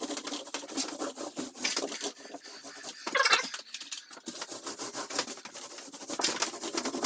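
Paint being spread onto wood in quick, irregular rubbing strokes: a thin, watered-down first coat going on.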